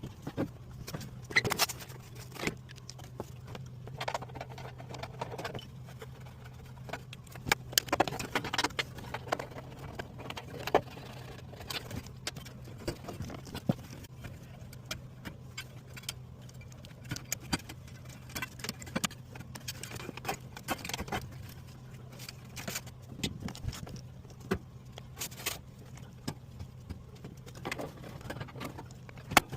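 Scattered metallic clinks, clicks and knocks of hands and tools working on an HVAC blower motor assembly, over a steady low hum.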